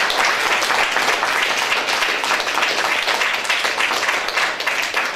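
Applause from many hands clapping, easing off near the end.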